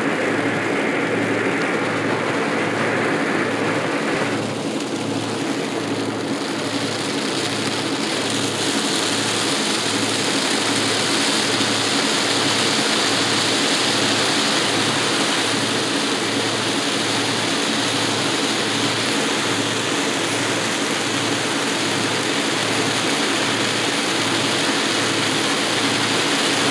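Road noise inside a moving car in the rain: steady tyre and engine sound with rain hissing on the windshield and roof, with a low throb repeating a little over once a second. The rain hiss grows heavier about eight seconds in.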